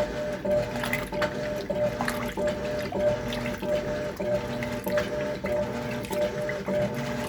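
Electrolux LTC10 top-loading washing machine agitating a heavy load in deep water. The motor hums and whines in a steady repeating rhythm as the agitator swings back and forth, with water sloshing.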